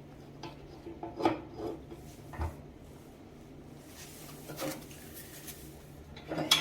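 Parts of a cast-iron wood stove being handled: a few light metal clicks, knocks and scrapes.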